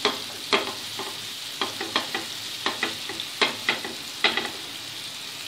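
Onion-tomato masala sizzling in oil in a frying pan while a wooden spatula stirs it. The spatula's strokes scrape and knock against the pan about twice a second, at an uneven rhythm, over a steady frying hiss.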